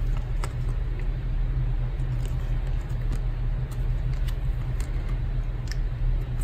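Steady low rumble in the background, with faint scattered clicks of glossy photocards being handled and shuffled in the hands.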